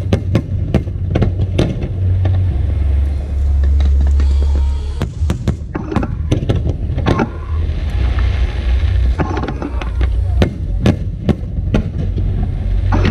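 Fireworks going off in a rapid, irregular series of sharp bangs over a heavy low rumble, with a stretch of crackling hiss about eight seconds in.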